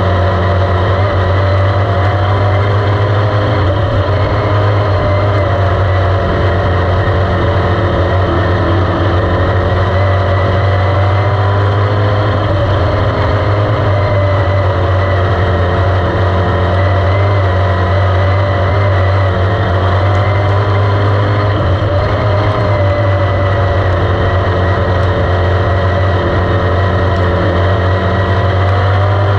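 Dirt-track race car engine heard from inside the cockpit, running loud and steady at speed, its pitch rising and falling slightly a few times.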